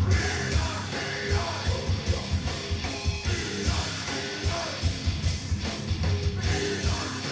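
Live heavy rock band playing loud, with rapid bass drum beats under the guitars.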